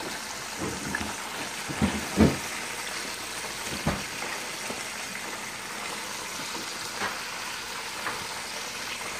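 Battered chicken wings deep-frying in a pot of hot oil: a steady bubbling sizzle. A few short louder sounds stand out about two and four seconds in.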